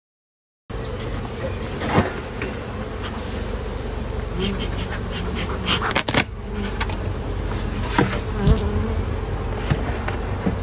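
Honeybees buzzing around a hive, a steady hum that starts suddenly less than a second in, with a few sharp knocks and clicks of handling about 2, 6 and 8 seconds in.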